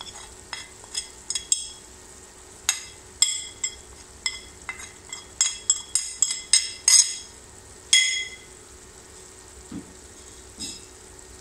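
A china plate clinking and ringing in a quick irregular run of taps as ground spices are knocked off it with a wooden spatula into a wok, the clinks stopping about eight seconds in. Hot oil sizzles faintly underneath.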